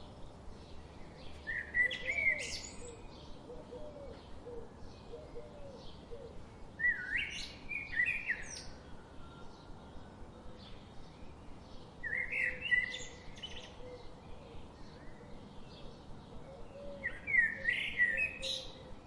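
Outdoor bird ambience: one bird repeats a short, loud song phrase of quick sweeping notes four times, about every five seconds. Fainter chirping from other birds runs steadily in the background.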